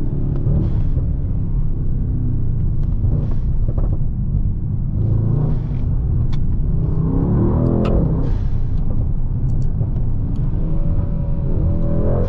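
Brabus Rocket GT 900's twin-turbo V8 running under way, the revs climbing around seven to eight seconds in, with a few short sharp cracks.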